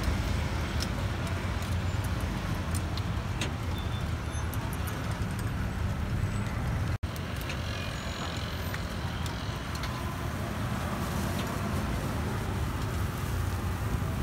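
Steady rumble of busy street traffic, motorbikes and cars passing close by. It cuts out for an instant about halfway through.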